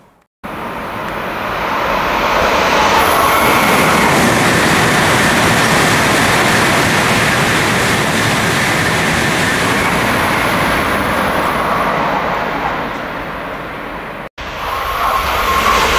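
16-car N700-series Shinkansen passing through the station at high speed without stopping: a loud, steady rush of air and wheel-on-rail noise that builds over the first two seconds and eases after about twelve. About fourteen seconds in, the sound cuts off abruptly and a second Shinkansen, an N700A, starts to come through, its rush rising.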